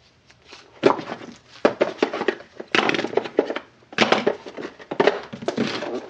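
Handling noise from a moulded plastic-and-card packaging tray as hair dryer nozzle attachments are pulled out of it: several short bursts of scraping, rustling and light knocks with brief pauses between them.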